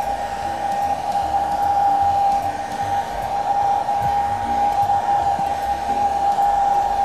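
Handheld hot-air blower running steadily, a constant whine over rushing air, as it dries a freshly sprayed coat of water-based grain texture on a leather repair.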